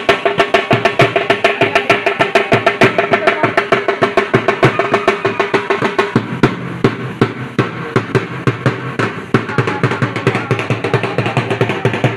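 Drumming for an adivasi (tribal) dance: fast, even drum beats, about five or six a second, with a held melodic tone over them that drops out about halfway, leaving the drums alone.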